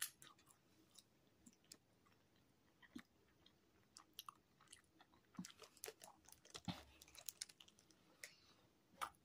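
Faint chewing of a mouthful of beef and bean burrito, a scatter of small mouth clicks, with a louder one near the end.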